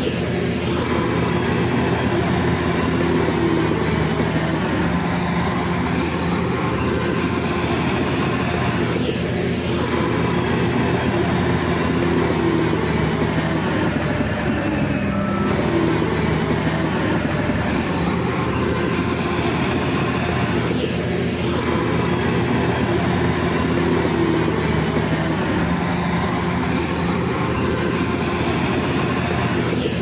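Shantui crawler bulldozer's diesel engine running steadily under load, with a sweeping swell in its sound that comes round about every six seconds.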